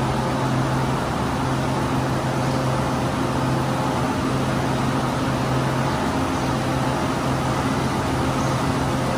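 Samsung SE450LC-2 crawler excavator's diesel engine idling steadily at an even, unchanging pitch. The machine has been started for the first time after sitting unused for more than ten years.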